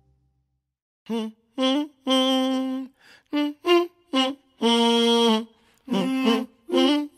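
A song opens with a lone voice humming a wordless melody in short notes, unaccompanied, beginning about a second in.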